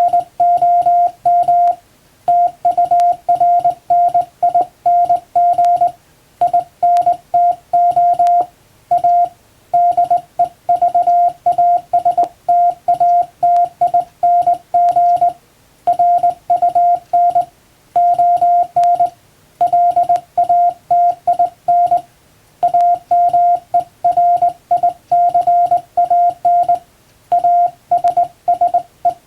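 Morse code sent by hand on a straight (up-and-down) telegraph key: one steady tone switched on and off in dots and dashes, in groups broken by short pauses, spelling out plain-language English text.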